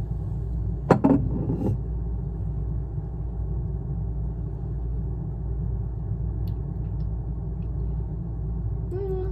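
Steady low rumble with a faint hum, and a brief sharp knock with a little clatter about a second in.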